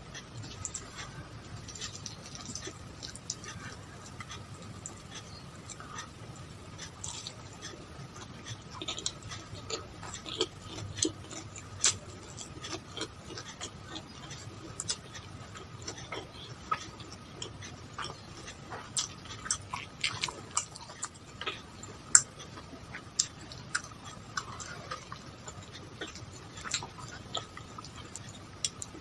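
Close-miked eating sounds: irregular wet mouth clicks and chewing, with one sharper click about two-thirds of the way through, over a faint steady hum.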